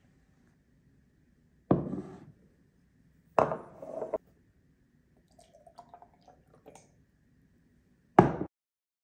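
A drinking glass handled on a countertop, with liquid sounds: three sudden loud sounds, each dying away within a second, and softer clinks in between.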